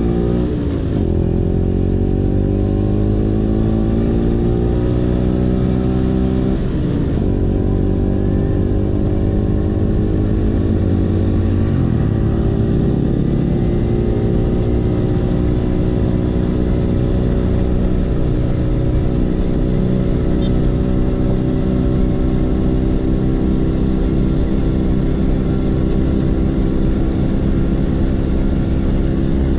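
Vespa PX 150's single-cylinder two-stroke engine running through a DRC Victory racing exhaust while accelerating through the gears. The pitch drops at a gear change about a second in and again about seven seconds in, then climbs slowly and levels off.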